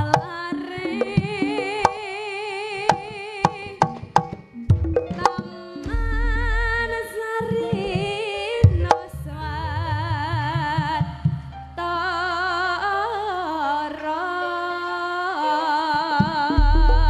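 A woman singing Javanese sinden-style vocals with a strong, wavering vibrato through a PA, over live jaranan band accompaniment with sharp hand-drum (kendang) strokes and a steady bass.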